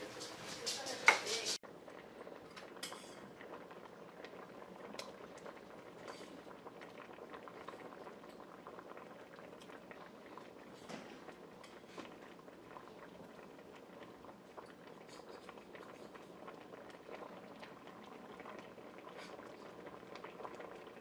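Broth boiling in a stainless steel stockpot as squares of pot pie dough are dropped in with small splashes and a sharp click during the first second and a half. After an abrupt cut, a soft steady bubbling with scattered small pops continues.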